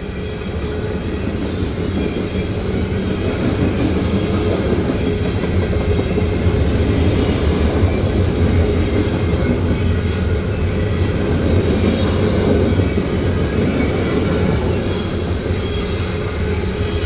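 Loaded coal cars of a long freight train rolling past at speed: a steady rolling noise of steel wheels on the rails.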